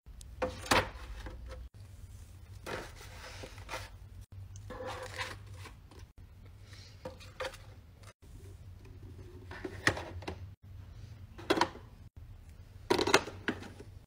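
Fidget toys being handled and set down in a plastic organizer tray: a series of short taps, clacks and rustles, one every second or two, over a low steady hum.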